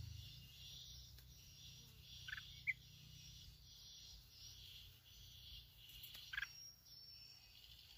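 Faint, steady high chirring of insects over a low rumble, with two brief bird calls, one about two and a half seconds in and one about six and a half seconds in, from red-whiskered bulbuls at the trap cage.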